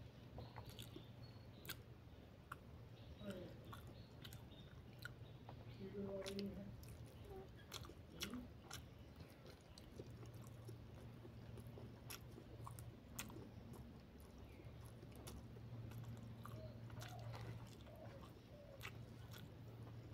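Close-miked chewing and mouth sounds of a person eating rice and egg curry by hand, with many small wet clicks and smacks over a low steady hum.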